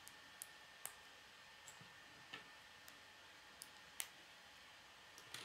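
K'nex plastic rods and connectors clicking as they are pressed together by hand: about ten small, sharp clicks at uneven intervals, the loudest about four seconds in.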